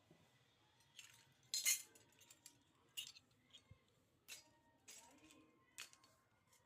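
Small pieces of a miniature toy kitchen set clinking and tapping together as they are handled: about six light, separate clinks, the loudest near two seconds in, some with a faint short ring.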